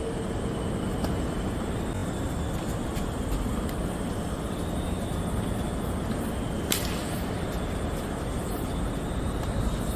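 Tennis balls struck by racquets during a doubles rally: a few sharp pops a second or two apart, the loudest about two-thirds through, over a steady low rumble.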